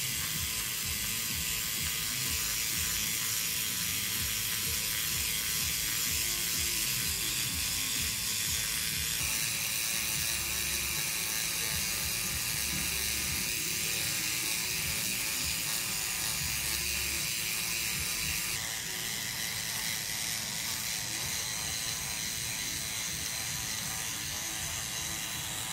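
A SkinPen microneedling pen with 12 needles runs continuously as it is worked over facial skin, giving a steady, rapid mechanical buzz. Its tone shifts slightly twice.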